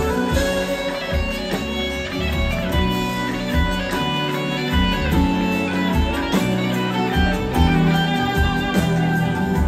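Live band playing an instrumental passage of a Turkish pop song: guitars and string instruments carry the melody over a steady bass and drum beat.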